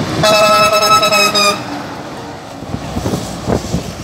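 Tractor-trailer horn sounding one steady blast about a second and a half long, then the truck's engine and road noise as it goes by.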